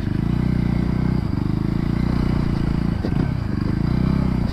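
Voge 300 Rally's 300 cc single-cylinder engine running at fairly steady revs as the motorcycle rides along.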